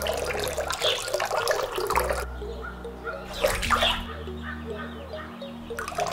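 A thin stream of water poured from a small cup, splashing into a miniature trough and pond. The pouring stops about two seconds in, a short splash comes near the middle, and the pouring starts again near the end.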